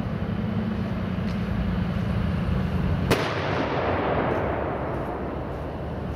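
A heavy vehicle engine rumbling steadily, and about three seconds in a single loud weapon report, a sharp bang that rolls away over about two seconds.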